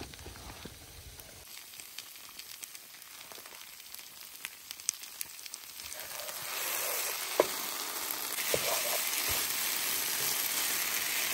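Macaroni and cheese frying in a nonstick pan on a butane camp stove: a sizzle with the small clicks and scrapes of a wooden spoon stirring. It is quiet at first and grows louder about halfway through.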